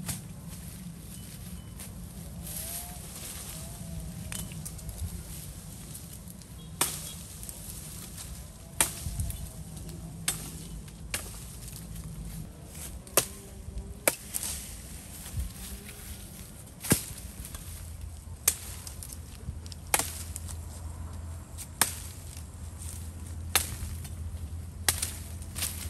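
Firewood being chopped with a blade: a dozen or so sharp separate strikes into wood, one every second or two, starting several seconds in.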